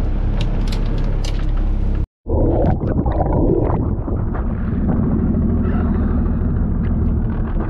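Fishing boat's engine rumbling steadily, with wind buffeting the microphone; the sound drops out completely for a moment about two seconds in.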